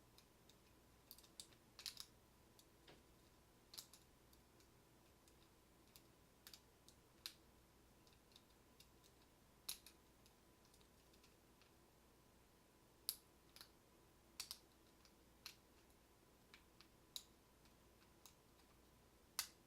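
Faint, irregular clicks of a lock pick and tension wrench working the pin stack of a Schlage deadbolt cylinder during single-pin picking, with a few louder clicks among the quiet taps and pauses between them.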